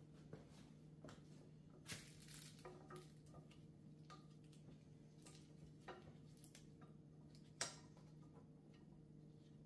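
Near silence: a steady low hum with a few faint clicks and taps, the loudest about three-quarters of the way in, from hands working at the workbench while a new rubber valve cover gasket is seated on the valve cover.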